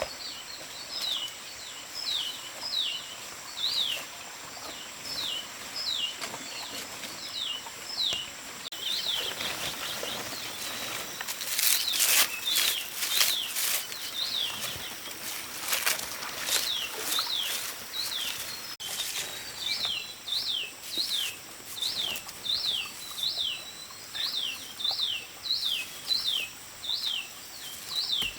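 A bird calling over and over, short sharp sweeping chirps about twice a second. Midway, for several seconds, a louder run of sharp clicks and rustling sounds over the calls.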